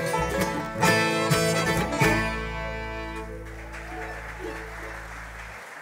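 Bluegrass band with banjo, mandolin, acoustic guitars, fiddle and upright bass playing the last bars of a tune. About two seconds in they land on a final chord that rings and fades, and the upright bass note stops near the end.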